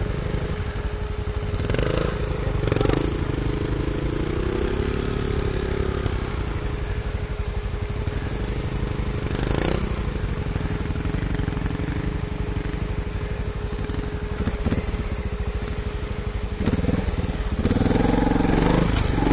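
Single-cylinder trials motorcycle engines running at low revs, with short sharp throttle blips about 2, 3 and 10 seconds in. Near the end a bike close to the microphone gets louder and busier as it climbs.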